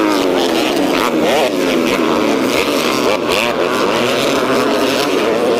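Racing quad bike (ATV) engines revving, their pitch rising and falling with the throttle, more than one engine at a time.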